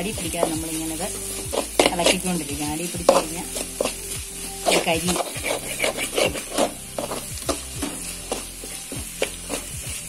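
A metal spatula scraping and stirring sliced onions, chillies and curry leaves that are sizzling in oil in a metal pan, with many quick, irregular scrapes against the pan.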